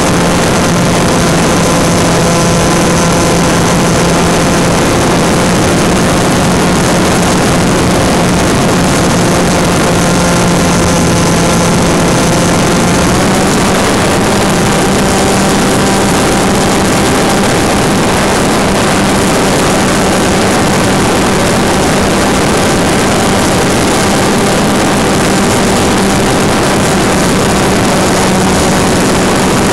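Turnigy Park 250 2200 kV brushless motor driving a 5x4.3 propeller in flight, a loud steady whine under heavy wind rush on the plane's on-board camera microphone. Its pitch steps up slightly a little before halfway through, as the throttle is raised.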